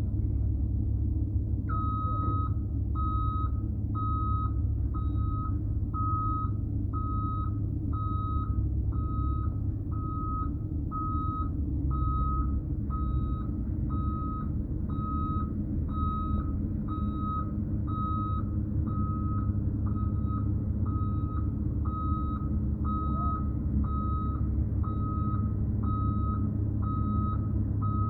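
A heavy machine's reversing alarm beeps a steady single tone about once a second, starting a couple of seconds in. Underneath, a large engine runs steadily.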